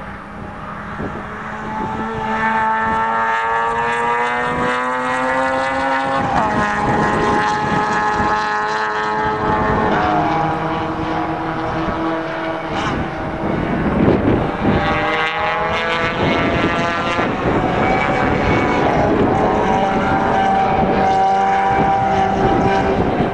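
Several racing saloon cars' engines at high revs, their notes overlapping and rising in pitch as they accelerate through the bends, dropping back at each gear change. The loudest pass comes a little past halfway.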